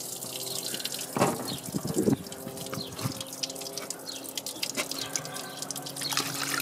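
Coolant draining from a Massey Ferguson 265's cooling system through the undone bottom radiator pipe, pouring and splashing onto the ground. A couple of clunks about a second and two seconds in.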